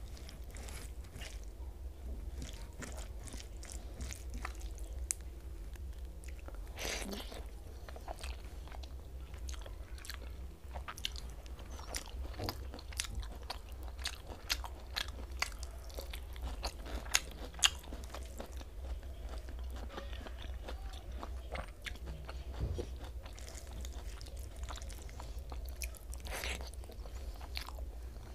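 Close-up eating sounds: a person chewing and smacking while eating rice, omelette and fried vegetables by hand, a stream of short wet clicks and crunches, with the hand mixing rice on a steel plate. A steady low hum runs underneath.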